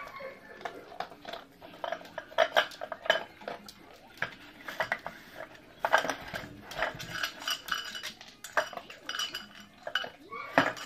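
Metal muffin tin clattering and sliding on a hard floor as a dog nudges tennis balls out of its cups with its nose to reach the kibble underneath: irregular clinks and knocks throughout.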